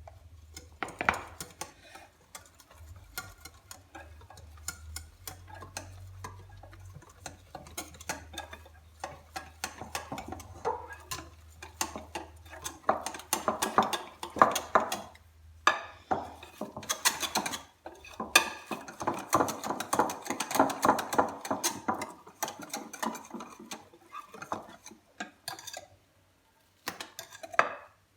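A utensil clicking and scraping against a mixing bowl as thick cake batter is stirred by hand, in quick irregular strokes with a brief pause near the end.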